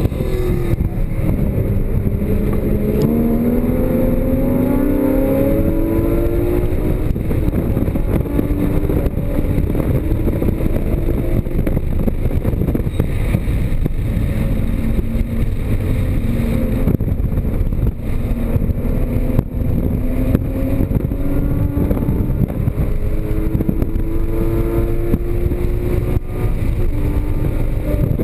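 Porsche Cayman GTS's 3.4-litre flat-six under hard track driving, its pitch climbing several times as it accelerates and holding level between the climbs, over a constant heavy rumble of wind and road noise.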